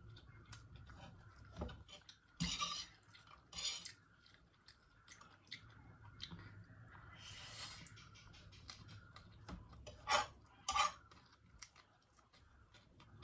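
Spoon or fork clinking and scraping against a bowl or plate while noodles are eaten, in a few short clatters with soft clicks between them.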